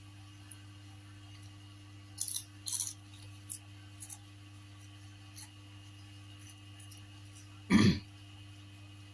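Eating sounds close to the microphone: a few brief crackles about two seconds in, then a short loud thump near the end, over a steady low hum.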